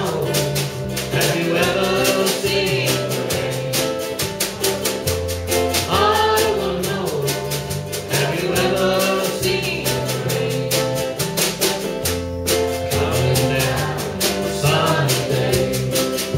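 Small live acoustic band playing a rock song: a man and a woman singing over a strummed ukulele and guitar, with a drum keeping a steady beat.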